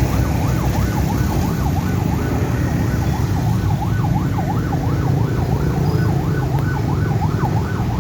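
Electronic warning siren at a railway level crossing, wailing rapidly up and down about three times a second over a steady low rumble; it warns that a train is approaching and the barriers are coming down.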